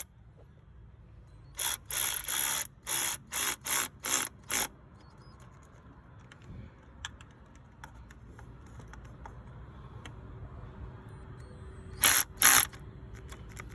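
Cordless electric ratchet run in short bursts as it tightens the thermostat housing bolts: a quick run of about eight brief bursts in the first few seconds, then two more near the end.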